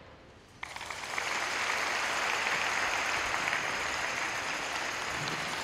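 Audience applauding. The applause starts abruptly about half a second in, as the last of the skating music dies away, and then holds steady.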